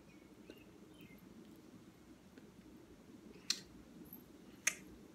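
Two short, sharp clicks a little over a second apart, near the end, over a faint steady low hum.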